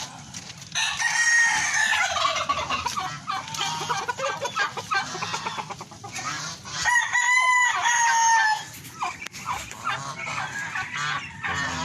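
Roosters crowing over chickens clucking. One loud crow comes near the start, and another, held steady for about a second and a half, about seven seconds in.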